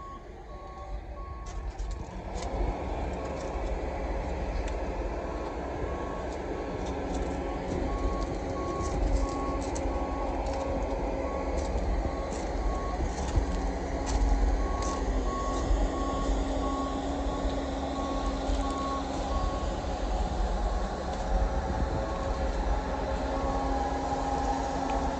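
A vehicle's reversing alarm beeping at an even pace over the steady running of its engine; the beeps stop about twenty seconds in. The engine grows louder about two seconds in.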